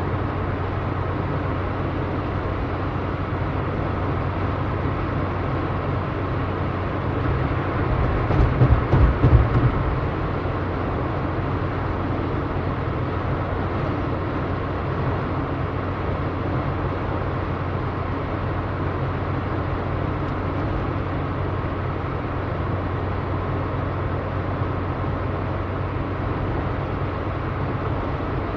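A car being driven: steady engine hum and road noise, with a short run of louder low thumps about eight to ten seconds in.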